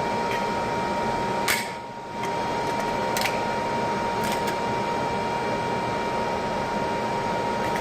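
Steady background hiss with a constant faint tone, broken by a few sharp clicks: the strongest about a second and a half in, another about three seconds in, and two close together a little after four seconds.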